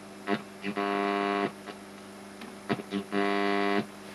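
Graetz Komtess 811 tube radio's loudspeaker giving out a buzz and crackle on the medium-wave band: two buzzes under a second long, with short clicks around them. This is interference from a fluorescent lamp that the radio is picking up.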